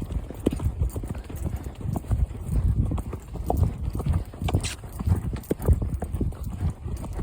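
Horse's hoofbeats: repeated dull thuds in an uneven rhythm.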